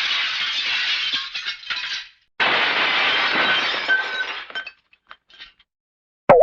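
Glass shattering sound effect, twice: each a crash of breaking glass with pieces tinkling on, the second trailing off into a few scattered clinks. A sharp twang starts right at the end.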